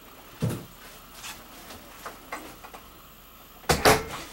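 Knocks and thumps inside a motorhome as someone moves through it. There is a dull thump about half a second in, a few light ticks after it, and two loud knocks close together near the end.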